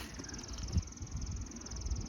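A high, rapidly pulsing insect trill that starts at the beginning and holds steady, over a low rumble with a few soft thumps.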